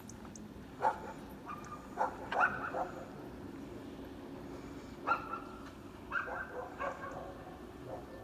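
A dog barking and yipping in short groups: one bark about a second in, a quick run around two to three seconds, another bark near five seconds and a run of yips around six to seven seconds. A steady low hum sits underneath.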